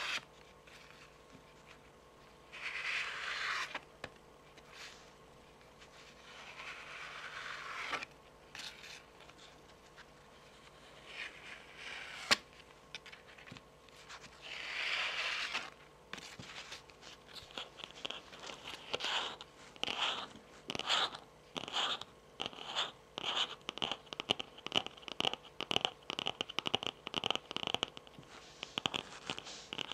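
Long fingernails and tarot cards: slow scraping strokes of nails and card across a laminated card face, with one sharp click near the middle. Then a quick, even run of fingernail taps on the card, a few a second.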